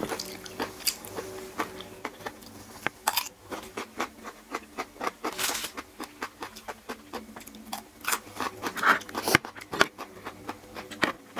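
Close-up eating sounds: chewing a fresh radish, with a spoon and fork clicking and scraping against a tray of food.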